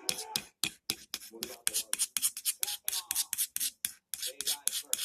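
Scissor blade drawn quickly back and forth on a knife sharpener: rapid rasping strokes of metal on the sharpening surface, about five a second, to put an edge on the blade.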